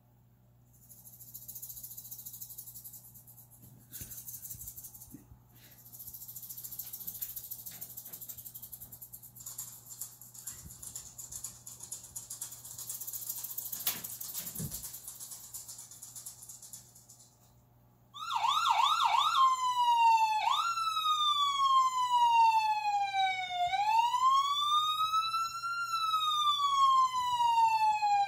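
A faint hiss, then about 18 seconds in a siren starts with a few quick warbling yelps and goes into slow rising and falling wails.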